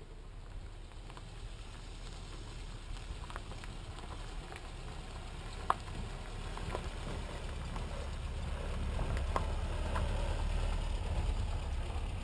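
Small pickup truck driving up a dirt road toward the listener, its engine rumble growing steadily louder as it nears, with crackling of tyres on dirt and gravel. A single sharp click about six seconds in.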